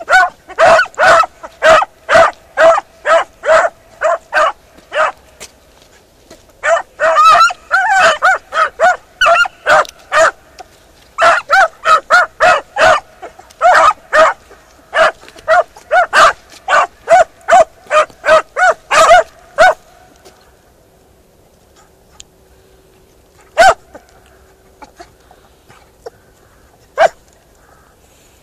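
Beagle harrier hounds barking, a rapid run of short barks about two to three a second that breaks off briefly around six seconds in. About twenty seconds in the barking stops, leaving only a couple of single barks.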